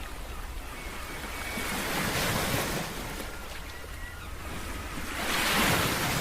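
Sea waves breaking and washing on the shore, with wind. The sound swells twice, the second surge near the end the loudest.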